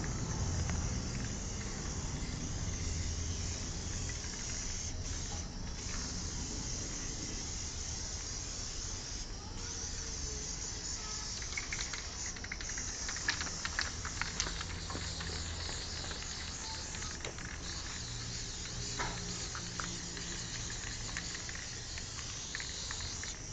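Aerosol spray-paint can hissing in long sprays with a few short breaks, and a few sharp clicks near the middle.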